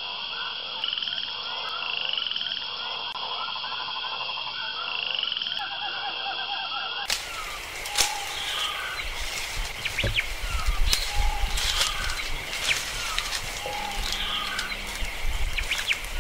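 A chorus of frogs croaking and trilling over fish ponds. About seven seconds in it gives way to dry palm fronds crackling and rustling as they are gathered by hand, with short chirping calls and a low rumble.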